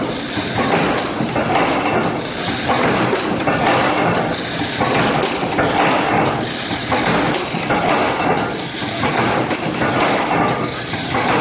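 Automatic steel-wire D-ring making machine running, its bending tools forming wire into triangular rings with steady, repeating metallic clanking and clinking.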